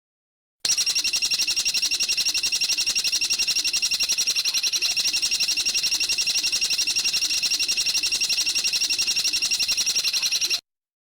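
A bird's rapid, high-pitched trill, an unbroken run of fast even notes lasting about ten seconds, starting and stopping abruptly as an edited birdsong recording.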